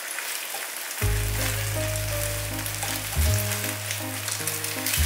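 Eggs frying in oil in a pan, a steady sizzle. Background music with low held notes comes in about a second in.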